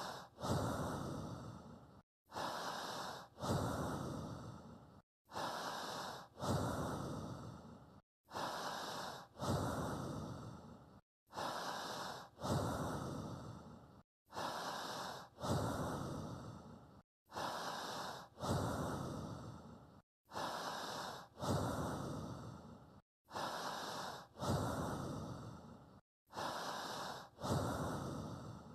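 Human breathing repeating evenly about every three seconds: each cycle is a short breath followed by a longer one that fades away, with a brief dead-silent gap before the next.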